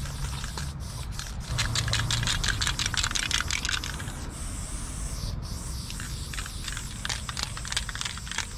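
Spray-paint aerosol can in use: a long stretch of rapid clicking rattle, a brief hiss of spraying about halfway through, then more clicking rattle.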